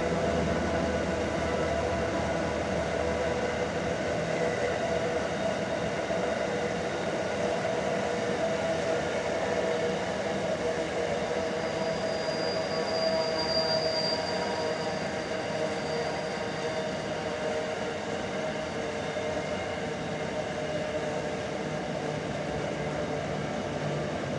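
Long empty steel freight train rolling past on curving track, a steady rumble of wagons with ringing tones running through it. A thin high wheel squeal rises and fades about halfway through.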